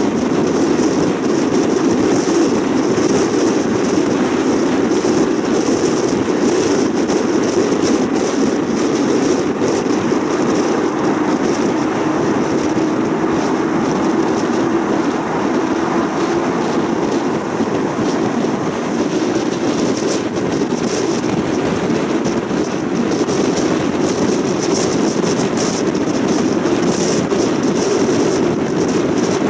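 Steady road noise of a car travelling at highway speed, mostly tyre roar with wind noise over it.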